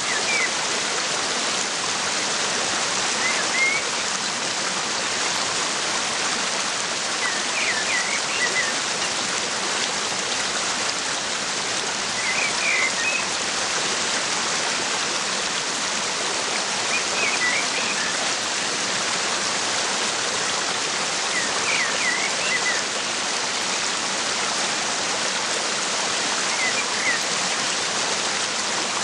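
Steady rushing of a waterfall, with a bird's short burst of high chirps about every four to five seconds over it.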